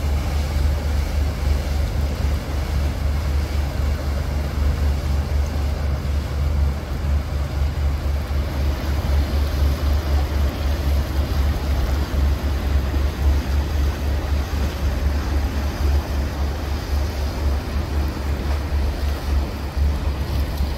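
Motorboats passing through a rock jetty inlet one after another, a flybridge cruiser, then an outboard center-console, then a bowrider: engines and water wash blending into a steady, loud low rumble with no pauses.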